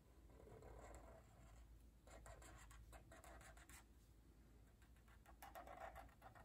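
Faint scratching of a black Sharpie marker's felt tip drawn across paper in several short curved strokes.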